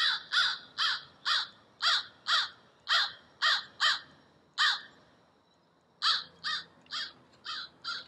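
Recorded crow caws played from the small speaker of an electronic bird-sound book: a run of about ten caws, a pause of about a second, then five more, slightly fainter.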